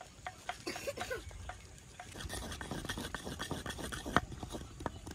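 A spoon stirring and scraping meat and yogurt masala in a cooking pot, with scattered clicks of the spoon against the pot. The scraping gets busier about two seconds in, and there is one sharp knock at about four seconds.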